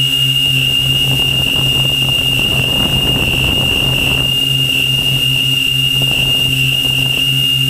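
Multirotor drone's electric motors and propellers whining steadily, heard close up from the drone's onboard camera, with a steady high whine over a low hum and a rush of noise in the first half.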